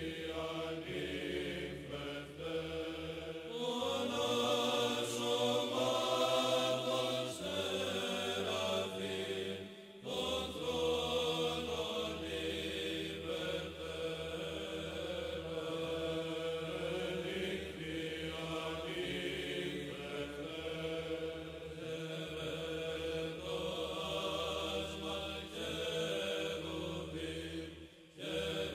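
Background chant music: voices singing a slow melody over a steady low held drone.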